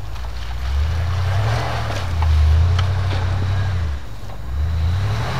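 Full-size Jeep Wagoneer's engine revving hard in surges as it pushes through deep snow: it climbs about a second in, stays high through the middle, eases off near four seconds and climbs again near the end.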